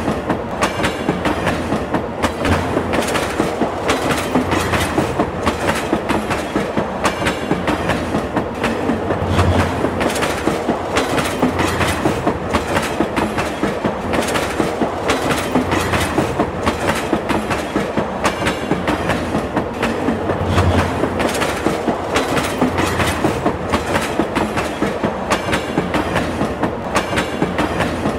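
Train wheels running over rail joints in a steady, rapid clickety-clack, the sound of a passenger train moving along the track.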